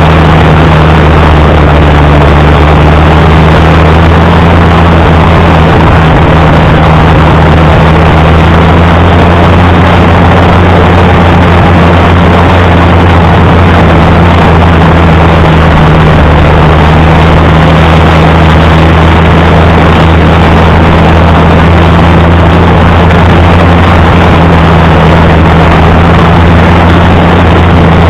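Allis-Chalmers D19 tractor engine running steadily and loud, with an even low engine note throughout.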